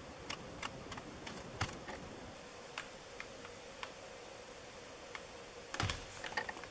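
Ball stylus tapping and scratching over tracing paper laid on leather while lines are traced: faint, irregular sharp ticks, with a short cluster of louder clicks and a dull knock about six seconds in. A faint steady hum sits underneath.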